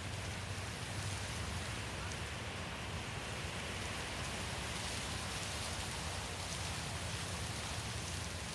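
Steady wind noise: an even, rushing hiss that holds level without distinct gusts.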